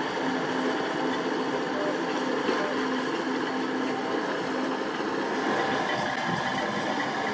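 Heavy diesel machinery running steadily: a Sany SY75C excavator working with a dump truck. A steady drone in the engine noise drops out a little past halfway.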